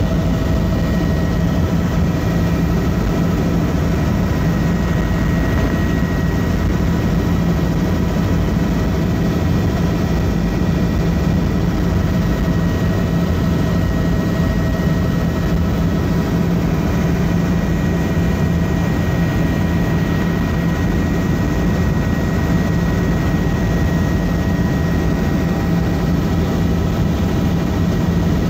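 Helicopter's engine and rotor running steadily, heard from inside the cabin: a constant low hum with a few steady higher whining tones over it.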